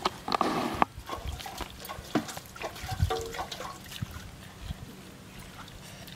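People eating rice and chicken curry with their fingers: wet squishing of the gravy-soaked rice, lip smacks and slurps, a string of short sharp clicks and smacks with a louder wet burst just after the start.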